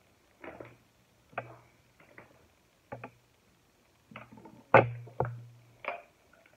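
Small objects being handled and set down on a tabletop: a run of about eight irregular knocks and clacks, each with a dull thud from the table, the loudest a little under five seconds in.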